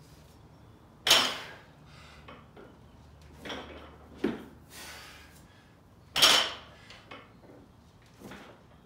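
Loaded barbell with bumper plates during repeated snatch high pulls: two loud, sharp clanks about five seconds apart, with softer knocks between.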